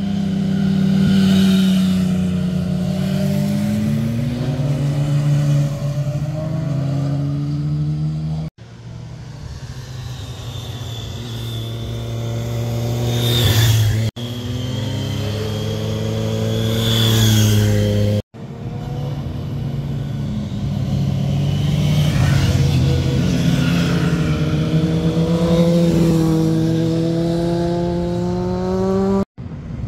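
Motorcycles riding one at a time through a hairpin bend, their engine notes rising and falling with throttle and gear changes. The sound cuts off abruptly about four times between passes.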